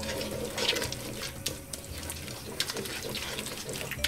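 Wooden spoon stirring and scraping onions and mushrooms around a large aluminium pot, in short repeated strokes over a sizzle from the cooking food.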